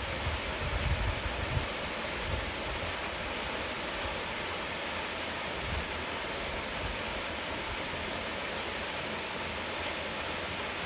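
Steady rush of a 15 m straight-drop waterfall, an even hiss-like roar of falling water with no change in level. Some low buffeting in the first couple of seconds.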